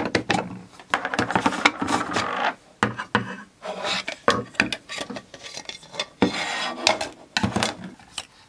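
Plastic parts of a film-developing tank and its spiral reels being handled: irregular plastic rubbing and scraping broken by sharp clicks and knocks.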